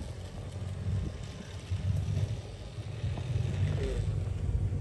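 Engines of distant Benelli TRK adventure motorcycles riding a dirt off-road practice course, a low rumble that rises and falls with the throttle.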